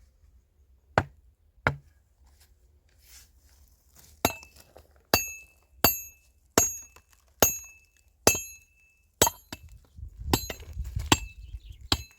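Repeated sharp strikes, each with a brief metallic ring: two at first, then a steady run of about one strike every 0.8 seconds, then a quicker jumble of knocks near the end.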